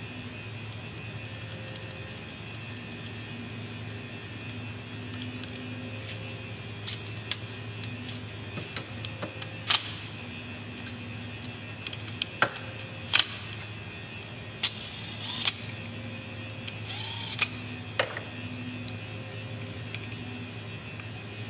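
Soft background music over a steady low hum, with scattered sharp clicks and clinks from hand tools and plastic connectors being handled in a car's engine bay, most of them in the middle of the stretch.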